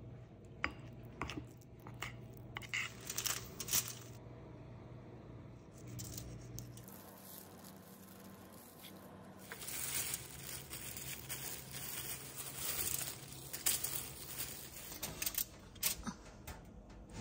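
Kitchen handling sounds. A metal spoon clicks against a ceramic bowl while the Parmesan mixture is stirred. Later, aluminium foil on a baking tray rustles and crinkles as the mixture is spread on the fish fillets, with scattered clinks.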